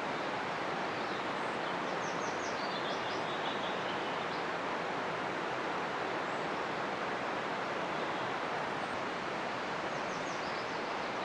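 Steady outdoor rushing background noise, with a small songbird singing two short phrases of quick high notes, about two seconds in and again near the end.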